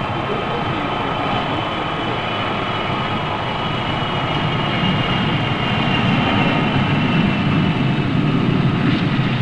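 Jet engines running on an airfield flight line: a steady rushing noise with a high turbine whine over a low rumble, growing a little louder about halfway through.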